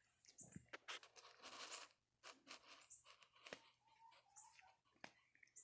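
Faint rustling and scratching of a Java macaque's hands picking through a person's hair close to the microphone, with many small clicks and crackles.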